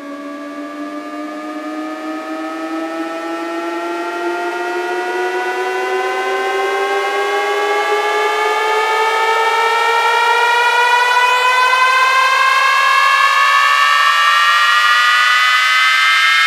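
Synthesized riser from an electronic DJ sound-check track: a layered buzzy tone gliding slowly upward in pitch and growing steadily louder, like a siren winding up.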